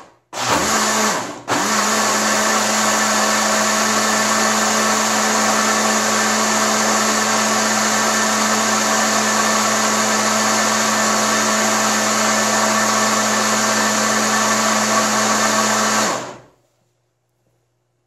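Electric kitchen blender motor running on a jar of homemade soap mixture (oil, lye solution and cornmeal), beating it to soap trace. It cuts out briefly twice in the first second and a half, then runs steadily for about 14 seconds before it is switched off and winds down.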